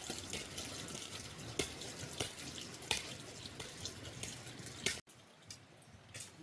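Steady splashing of running water with scattered sharp clicks and drips, cutting off abruptly about five seconds in.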